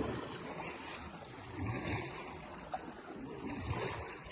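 Wind buffeting the microphone: a rushing noise with uneven low gusts.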